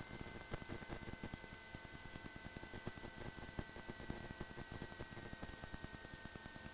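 Faint static hiss and irregular crackle on the cockpit intercom audio feed, with a thin whine that slowly drops in pitch and steady faint tones underneath.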